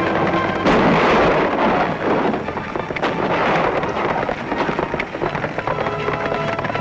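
Galloping horses and a stagecoach in a chase, a dense rumbling clatter that surges loudly about a second in, with sharp cracks around three and five seconds in. Dramatic background music comes in near the end.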